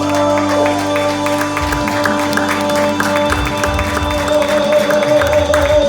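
The closing of a gospel song: a long held final chord with a steady beat of percussion hits running under it.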